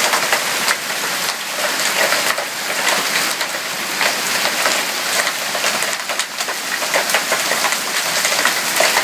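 Hailstorm: hail pelting down steadily, a dense patter of countless small sharp hits over a continuous hiss.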